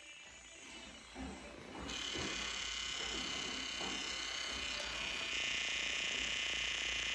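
Camera gimbal motors of a brand-new Xiaomi Fimi X8 SE 2020 drone making a high, steady electric buzzing whine like a shaver. It starts about two seconds in and gets louder about five seconds in. This is an abnormal noise for a new gimbal and suggests a fault.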